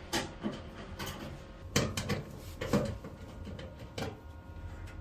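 Knocks and clunks from someone working on a broken washing machine, about six irregular hits in a few seconds.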